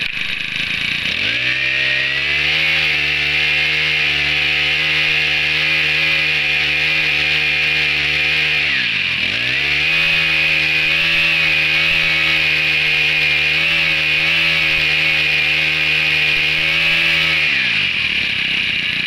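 Makita MEM428 four-stroke brush cutter engine pull-started, then revved and held at high speed. It drops briefly about halfway and revs back up, then falls back to idle near the end.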